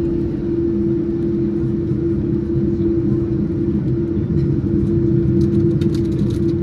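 Steady cabin drone of a twin-engine jet airliner taxiing: a constant hum over a low rumble from the engines at taxi power and the rolling gear. A few faint clicks come near the end.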